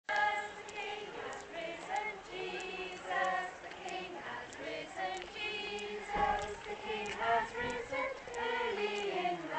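A group of young children singing together, many voices overlapping.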